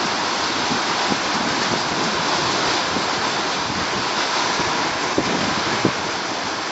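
Heavy rain falling steadily in a windstorm, an even hiss, with a few soft low thumps of wind buffeting the microphone.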